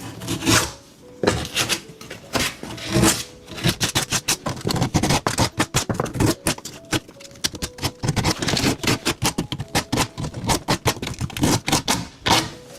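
Sandpaper rubbed by hand over the freshly sawn end of a wooden handrail: quick back-and-forth scraping strokes, several a second, coming faster from about four seconds in. It smooths the cut end so it won't splinter.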